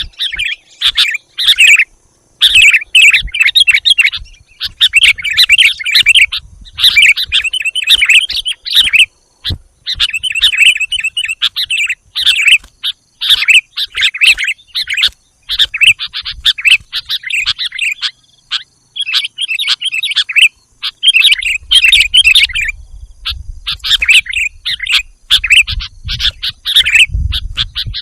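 Sooty-headed bulbul (kutilang) calling in loud, chattering phrases of about a second each with short pauses between, repeated over and over: a lure call for attracting wild bulbuls. A faint low rumble comes in near the end.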